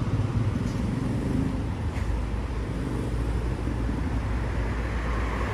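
Steady low rumble of road traffic, with a light hiss above it.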